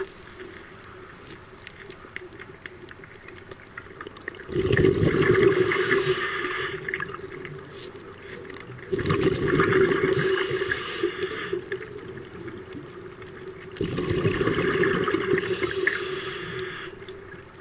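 A scuba diver breathing out through the regulator underwater: three long rushes of exhaust bubbles, each lasting two to three seconds and coming about every five seconds, with a faint steady hum underneath.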